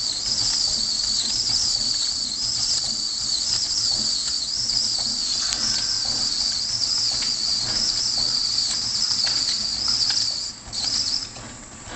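H1000L vertical ring coil wrapping machine running, its wrapping ring turning through the coil with a steady high, wavering whine over a low hum. About ten and a half seconds in the whine cuts off, returns for a moment, then stops as the ring halts and positions itself at the end of the wrap.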